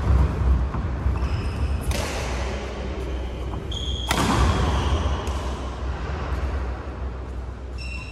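Badminton rally in an echoing hall: the racket strikes the shuttlecock sharply about two seconds in and again, loudest, about four seconds in on a jump smash. Short shoe squeaks on the court floor come between the hits, over a steady low hum.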